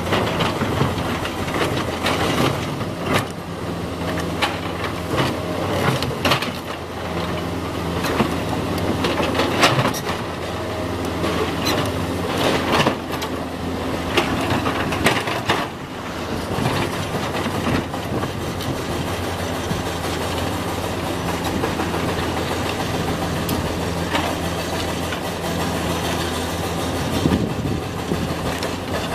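Komatsu PC200 excavator's diesel engine running steadily under work, with repeated knocks and clatter of the steel bucket and limestone rock, most frequent in the first half.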